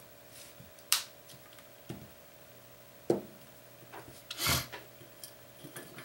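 Back case of a Nexus 4 phone being pressed and snapped onto the body by hand: a few separate plastic clicks about a second apart as the clips catch, and a longer scraping rub about four and a half seconds in.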